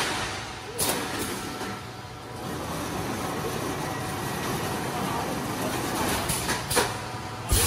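35-electrode reinforcing mesh welding machine running between weld strokes: a sharp clack about a second in, then steady machine noise with a faint hum, and a few more clacks near the end.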